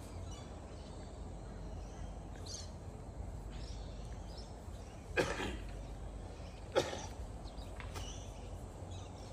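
Outdoor backyard ambience with a steady low rumble and faint bird chirps, broken by two short vocal sounds about five and seven seconds in.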